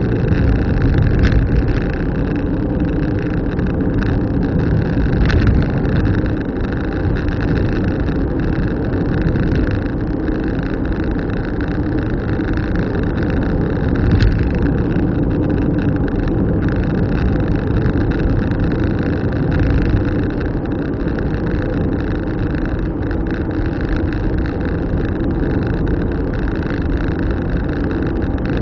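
A car driving along, with its engine and road noise making a steady low rumble, broken by a few brief ticks.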